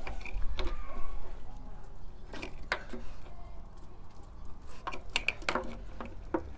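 Scattered clicks and knocks of plastic bungs being handled and pushed back into their holes in a van's side step.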